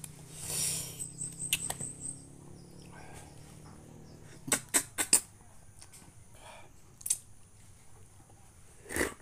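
Close-up eating sounds of juicy wild fruit: a wet slurp just after the start, then scattered sharp bites and mouth smacks, a quick cluster of three about halfway through.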